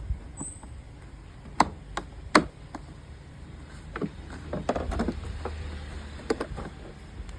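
Sharp knocks and clicks of hard objects being handled: two loud ones about one and a half and two and a half seconds in, then a scatter of lighter ones.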